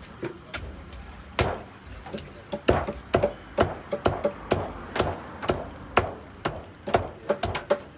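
Knife chopping through fish on a cutting board: a run of sharp chops, about two to three a second, starting a little over a second in.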